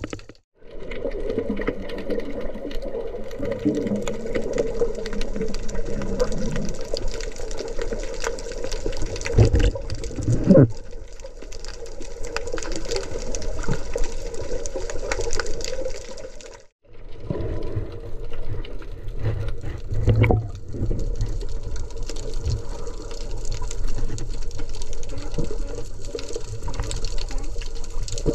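Muffled underwater water noise picked up by a submerged camera, with a steady wash and bubbling, swelling louder a couple of times. The sound cuts out completely for a moment twice, once about half a second in and again about two-thirds of the way through.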